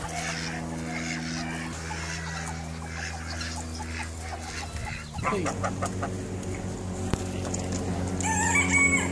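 Chickens clucking, with a rooster crowing near the end, over a steady low hum.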